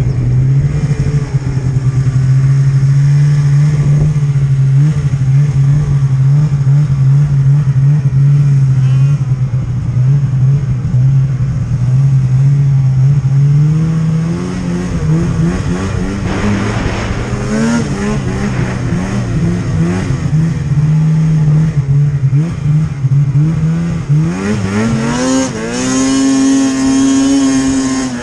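Snowmobile engine running at a steady pitch, then revving up and down. Near the end it climbs sharply in pitch as the throttle opens.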